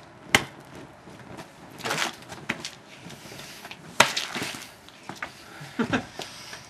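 Lighters being handled and flicked: two sharp loud clicks, one just after the start and one about four seconds in, with short rushing bursts and small knocks between them.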